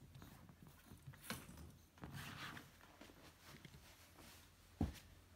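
Faint rustling and soft handling noises of a sail's sheet line being pulled and moved around a kayak, with a single dull thump near the end.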